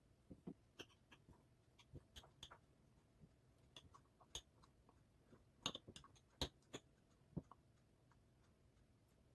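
Faint, irregular small clicks and taps of a utensil and jar being handled while honey is added to dried bellflower-root powder, with a few slightly louder knocks a little past the middle.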